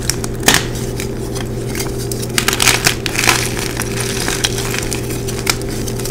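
Bars of gym chalk crushed and crumbled by hand into a pile of chalk powder, giving irregular dry crunches and crackles. The sharpest crunch comes about half a second in, with a cluster of crunches around the middle.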